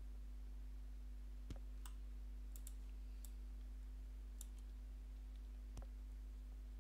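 A few faint, sharp computer mouse clicks, spread irregularly, over a low steady electrical hum.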